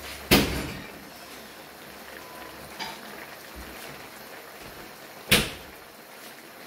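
Two sharp knocks on a kitchen surface, about five seconds apart, each dying away quickly, with a faint click between them.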